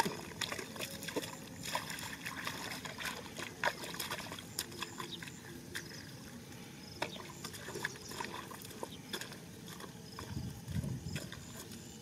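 Faint sloshing and squelching of feet wading through wet mud and shallow water, with many scattered sharp clicks throughout and heavier sloshing near the end.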